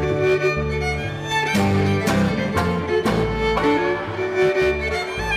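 Live contra dance band playing a dance tune, with a fiddle leading over an upright bass.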